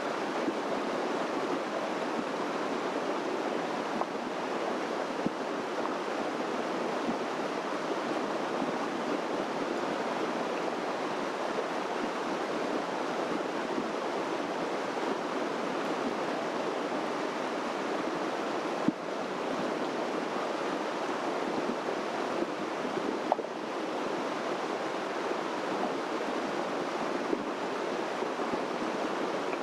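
Steady rushing of a mountain stream running fast over rocks, with a single sharp click about two-thirds of the way in.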